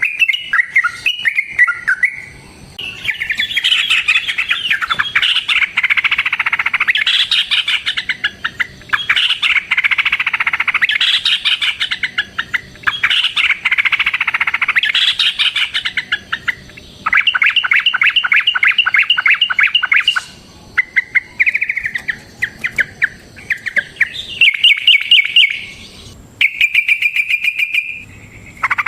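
Yellow-vented bulbul (trucukan) singing long, fast chattering runs of notes. About seventeen seconds in comes a rapid, even trill, and near the end the song breaks into shorter phrases with brief pauses between them.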